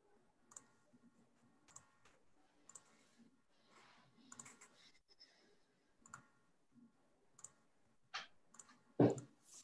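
Scattered single sharp clicks, one every second or so, picked up by a video-call microphone, then a louder knock near the end.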